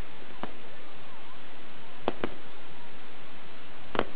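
Aerial firework shells bursting: a faint pop about half a second in, two sharp bangs in quick succession about two seconds in, and the loudest bang near the end, over a steady hiss.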